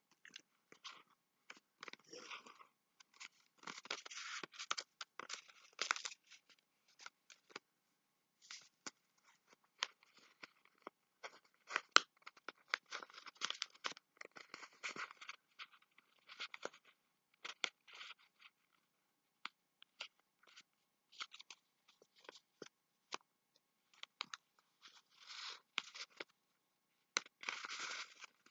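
Paper being folded and creased by hand: faint, irregular rustling and crinkling with short sharp clicks as the folds are pressed down, and one louder click about halfway through.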